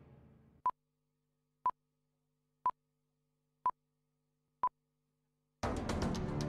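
Countdown beeps: five short electronic beeps of the same pitch, one a second, after the fading tail of a music sting. Intro music starts near the end.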